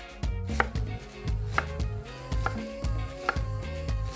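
Chef's knife dicing an onion on a wooden cutting board: crisp cuts with the blade striking the board about once a second. Background music with a steady bass beat plays underneath.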